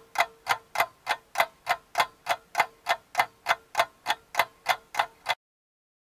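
Film-countdown-leader sound effect: sharp, evenly spaced ticks, about three a second, over a faint steady tone, cutting off suddenly about five seconds in.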